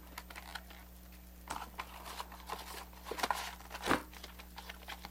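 Handling noise: scattered clicks, light knocks and rustles as objects are moved about, the loudest knock a little before the four-second mark, over a steady low hum.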